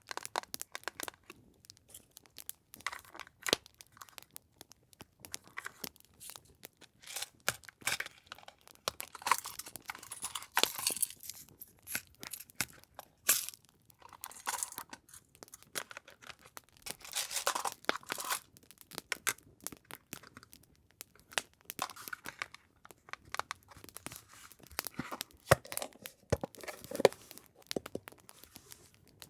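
Paper and packaging being handled: irregular bursts of rustling, crinkling and tearing, with many small sharp clicks.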